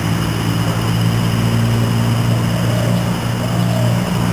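A steady low mechanical hum, like an engine running, with a faint steady high whine above it.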